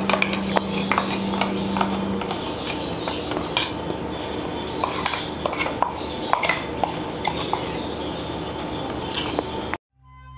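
A spoon clicking and scraping against cookware as ground coconut paste is spooned into a clay pot of cooked vegetables and stirred in. The clicks stop abruptly near the end, and music comes in.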